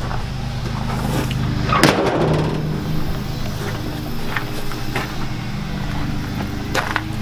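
A steady low hum, with one heavy thump about two seconds in and a few lighter knocks later.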